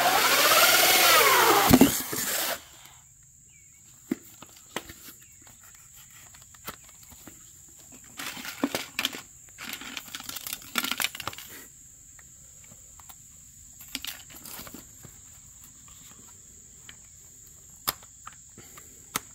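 A small motor runs with its speed rising and falling, then cuts off about two and a half seconds in. Scattered light knocks and short bursts of clatter follow.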